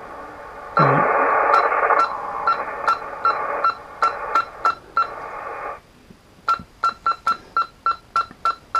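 Kenwood TS-430S transceiver stepping band by band with the UP band button held: a rapid run of short beeps, each with a relay click, about three a second, over speaker hiss that cuts off suddenly partway through. The receiver filter relays are cycling with DC fed into the antenna terminal to burn oxidation off their contacts.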